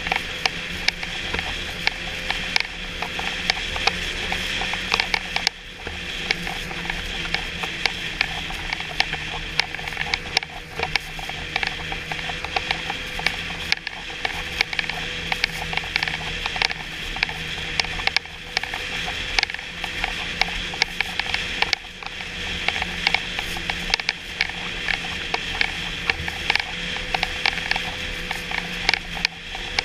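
Snowmobile running along a groomed trail at steady speed, a constant engine drone with dense, irregular clicking and rattling close by. The drone dips briefly a few times.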